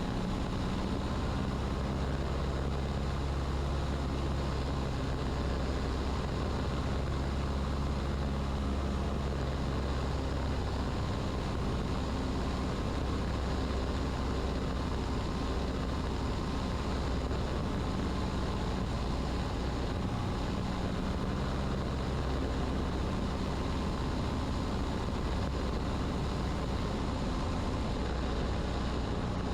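Cessna 150's Continental O-200 engine and propeller droning steadily in the cabin on short final approach, with wind and airframe noise.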